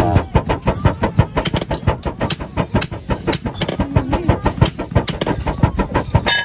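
Pair of hand-worked pot bellows at a village blacksmith's forge being pumped with two sticks, giving a fast, even chugging of air puffs, several strokes a second.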